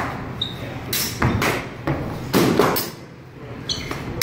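Longsword blades clashing and knocking in quick exchanges during fencing: several sharp clacks in two flurries, then a short metallic ring near the end and a hard hit at the very end.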